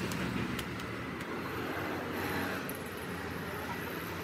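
Steady rumble of road traffic, with faint voices mixed in.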